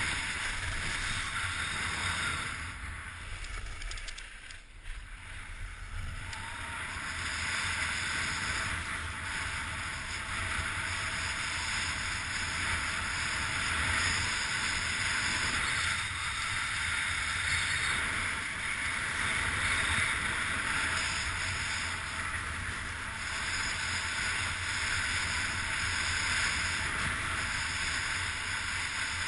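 Strong wind rushing and buffeting over the microphone of a camera riding along with a kite skier at speed, a steady roar of noise that briefly eases about four to six seconds in.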